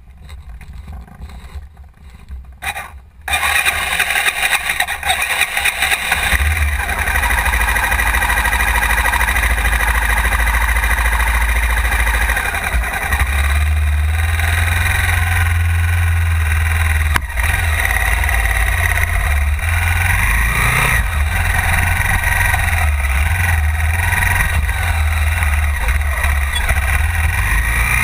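Honda XR 250 Tornado's single-cylinder four-stroke engine, quiet at first, then starting up suddenly about three seconds in and running steadily with a strong low rumble, heard through a camera mounted on the bike.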